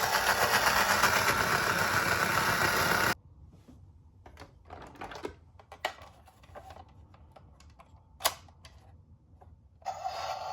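Toy police minicar running with a loud, dense, fast mechanical clicking rattle that cuts off abruptly about three seconds in. A few light clicks and taps follow, and near the end the toy's electronic siren starts with a steady tone.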